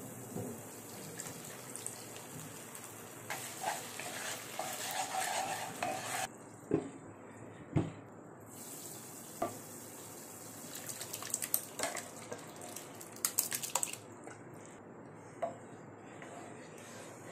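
A spoon stirring and scraping in a cooking pan, with a few sharp knocks of the utensil against the pan.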